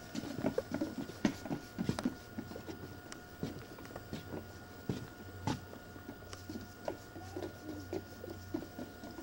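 Footsteps of several people walking on a wooden boardwalk: irregular knocks and taps, with no steady rhythm.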